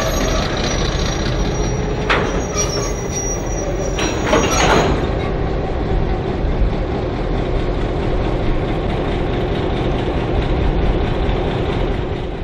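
V/Line Y class diesel shunter and its passenger cars moving, the diesel engine giving a steady low rumble. A thin high-pitched metal squeal from the wheels runs through the first few seconds, with short louder squeal or clank bursts about two seconds and four to five seconds in.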